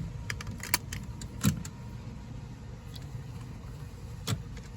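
A few sharp metallic clicks and knocks as hardware is handled: a quick cluster in the first second, a louder knock about a second and a half in, and another near the end, over a low steady hum.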